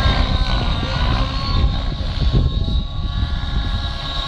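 Two nitro-powered radio-controlled helicopters flying aerobatics: a high engine and rotor whine that bends up and down in pitch over a low, uneven rumble, easing briefly about two and a half seconds in.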